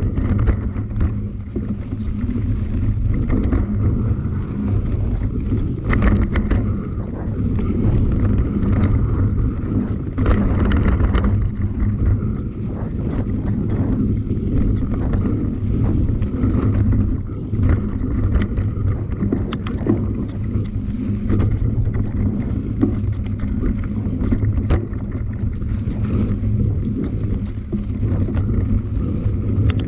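A vehicle engine running steadily with wind buffeting the microphone, and scattered knocks and rattles over it.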